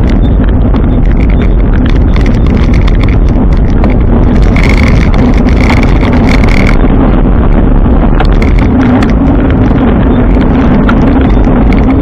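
Riding noise from a moving bike: steady wind and road rumble with frequent rattling clicks. A high whine sounds for about two seconds midway.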